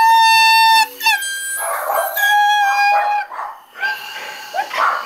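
Handheld canned air horn stuck on, blaring one loud steady note that breaks off about a second in. It then keeps coming back in weaker, wavering, slightly lower blasts that cut in and out: the horn has jammed and won't stop.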